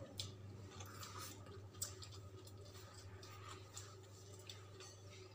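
Faint sounds of rice being eaten by hand from a steel plate: soft squishing and chewing, with a few light clicks, one sharper click about two seconds in. A steady low hum lies underneath.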